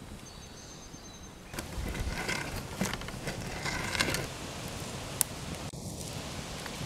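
Wood fire crackling and popping in the firebox of a clay kiln as sticks are pushed in to stoke it, with one sharp snap about five seconds in. A faint high insect trill sounds at the start.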